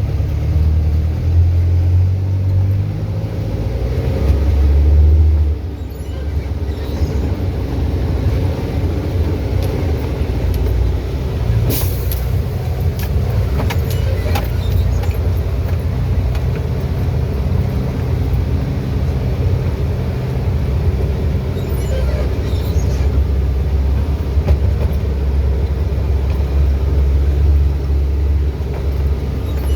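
Truck engine running under load on a rough, wet dirt road, a steady low drone whose pitch shifts in the first few seconds and eases off just before six seconds in. A sharp knock sounds about twelve seconds in, with a few fainter knocks later.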